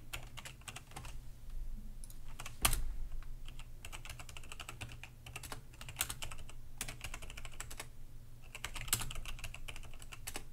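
Typing on a computer keyboard: quick, irregular key clicks in runs, with one louder keystroke about two and a half seconds in.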